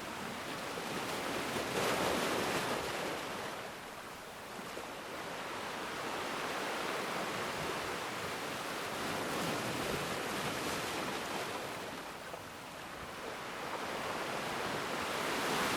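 Sea waves breaking and washing on a shore, a continuous rush that swells and falls back over several seconds, with surges about 2 s in, through the middle, and near the end.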